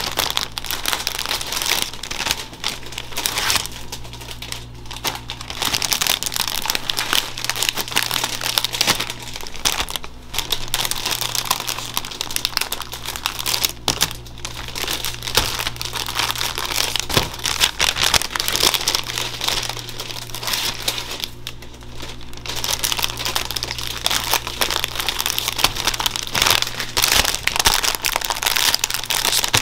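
Clear plastic bread bags crinkling and rustling as bagels are slipped into them and the bags handled with gloved hands, in bursts with short lulls. A faint steady low hum runs underneath.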